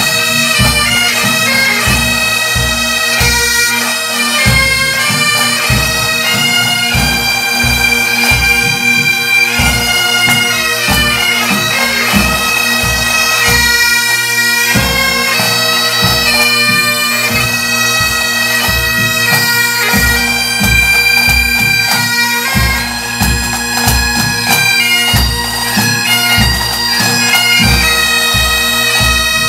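Pipe band playing a tune: several Great Highland bagpipes carrying the melody over their steady drones, with snare drums and a bass drum keeping a regular beat.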